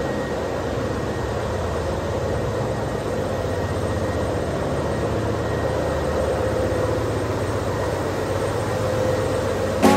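Steady engine-room machinery noise from running generator engines and auxiliary machinery: a continuous even din with a low hum underneath.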